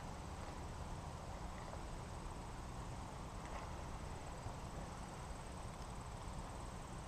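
Faint, steady background noise with a couple of faint ticks and no distinct event.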